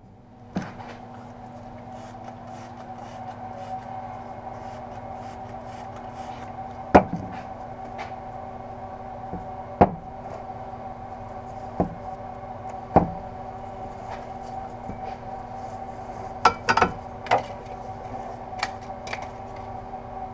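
Exhaust wrap being wound by gloved hands around a steel motorcycle header pipe on a wooden bench: soft rubbing, with scattered knocks and clicks as the pipe shifts against the wood. Under it runs a steady background hum.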